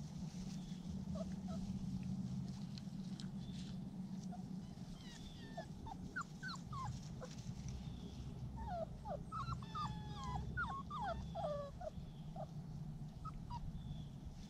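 Standard Schnauzer puppies whimpering and yipping in many short, high-pitched calls. The calls come thickest in the second half, over a low steady hum.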